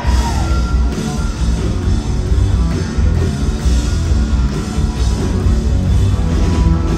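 Live rock band playing at full volume: a driving drum beat and bass under distorted electric guitars, dense and loud with no clear singing.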